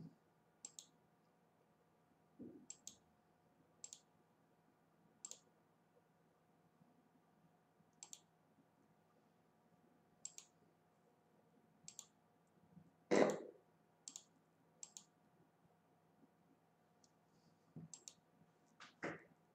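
Computer mouse clicking: a dozen or so single sharp clicks, irregularly spaced a second or two apart. A louder thump comes about two-thirds of the way through, and another near the end.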